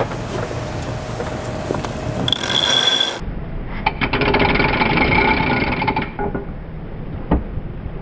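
A sailing yacht's cockpit winch ratcheting as a line is wound onto it: a fast run of clicks for about two seconds in the middle. The boat's engine runs steadily underneath.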